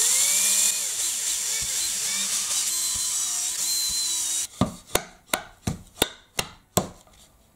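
Cordless drill boring a bolt hole through a plastic pulley and the plywood disc beneath it, a steady whirring, cutting sound that stops suddenly about four and a half seconds in. After it, a run of sharp, evenly spaced knocks, about three a second.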